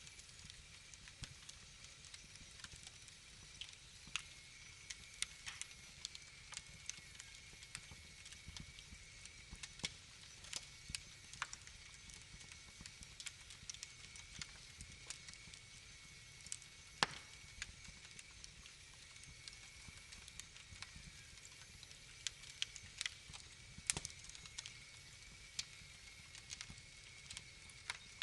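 Wood fire crackling in a fireplace: irregular sharp pops and snaps over a soft hiss, with a faint steady high tone underneath.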